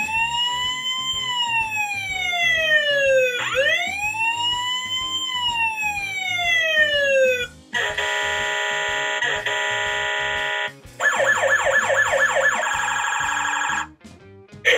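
A My First Tonka Wobble Wheels toy police car's electronic sound chip plays its button sounds. First comes a siren wail that rises and slowly falls twice. Then a steady blaring tone lasts about three seconds, then a fast warbling alarm settles into a steady tone and cuts off shortly before the end.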